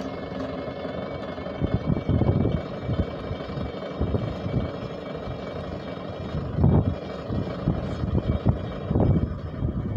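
Riding in a rickshaw: steady road rumble and rattling of the vehicle, with louder bumps and jolts about two seconds in, near seven seconds and near nine seconds.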